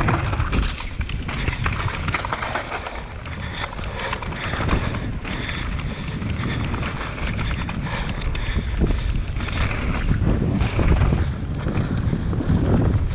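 Downhill mountain bike descending a trail, heard at an action camera's microphone: wind buffeting, low tyre rumble over dirt, and frequent rattles and clacks from the bike over bumps.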